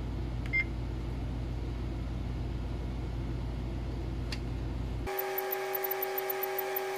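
One short, high electronic beep from the printer's control-panel key press about half a second in, over a steady electrical hum, with a light click about four seconds in. About five seconds in, the background changes abruptly to a different steady machine hum with faint, rapid ticking.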